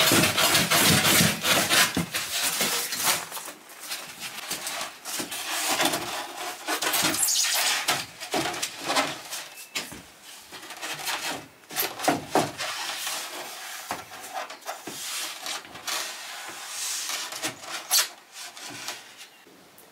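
Rigid Finnfoam insulation board scraping and rubbing as it is carved and fitted. The scraping is dense for the first few seconds, then turns into scattered rubs, scrapes and light knocks.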